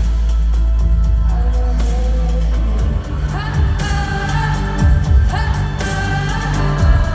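Live pop music played loud through an arena sound system, with a female lead singer singing over heavy bass. It is heard from within the audience. The bass pattern changes about three seconds in.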